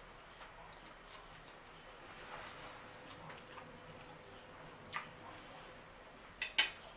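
Mouth sounds of someone chewing spaghetti, with small wet clicks and smacks. A metal fork clinks against the plate once about five seconds in and twice near the end, and those are the loudest sounds.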